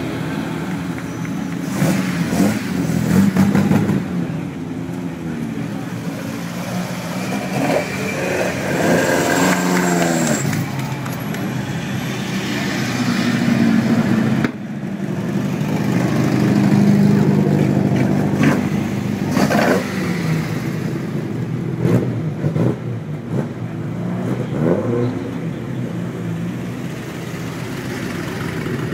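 Engines of historic racing vehicles running in a pit lane, with several revs rising and falling, about ten seconds in, over steady idling. Partway through, the sound breaks off sharply and resumes with more engines running.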